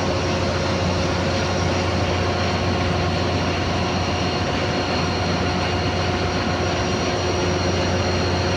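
Steady engine-room machinery drone: a constant low hum with several steady whining tones over it and an even rush of noise, without any change in pace.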